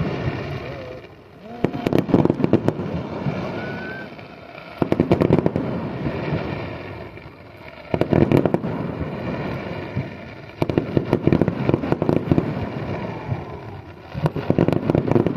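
Fireworks going off in rapid crackling volleys of many sharp cracks. A fresh volley starts about every three seconds, five in all, and each one fades away before the next.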